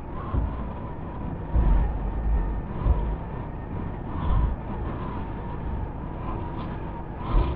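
Steady running and road noise of a vehicle on the move, with wind buffeting the microphone in low thumps several times, loudest about one and a half to two and a half seconds in.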